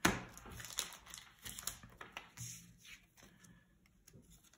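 Trading cards being handled and set down onto piles on a playmat: a sharp snap at the start, then a run of soft clicks and slides that thin out toward the end.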